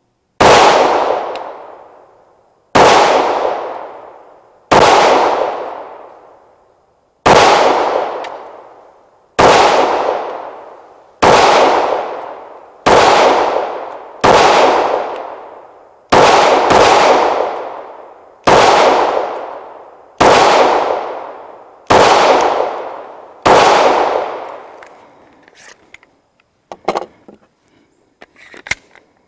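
Glock 45 9mm pistol fired slowly in about fourteen single shots a second or two apart, two of them close together, each with a long echo off the surrounding woods that dies away over a couple of seconds. A few light clicks and clacks follow near the end.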